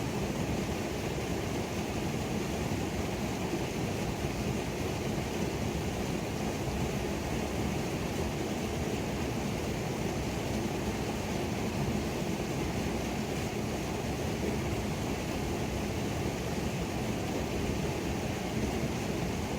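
Creek waterfall rushing steadily: a constant, even roar of falling and tumbling water, heaviest in the low range.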